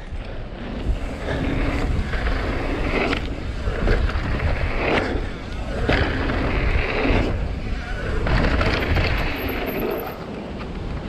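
Mountain bike riding a dirt trail: tyres rolling and crunching over dirt in swells every second or two, with wind rumbling on the microphone.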